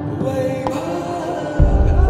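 Background music of sustained, held tones. A deep bass comes in suddenly near the end.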